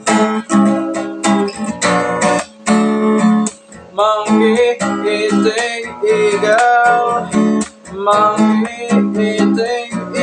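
Capoed acoustic guitar strummed in steady chords, with a voice singing along from about four seconds in.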